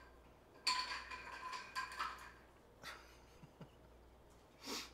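A sudden clatter of something hard with a ringing tone that dies away over about a second and a half, followed by a few lighter knocks and a short louder sound near the end.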